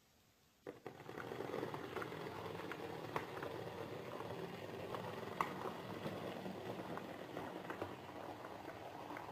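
OO gauge model diesel locomotive running along the track: the steady whirr of its small electric motor and wheels, starting just under a second in, with scattered sharp clicks.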